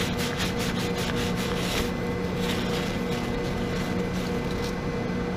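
Pratt & Whitney Model B lathe running with a steady hum. Over the first two seconds there are quick, repeated rubbing strokes as the workpiece is wiped down.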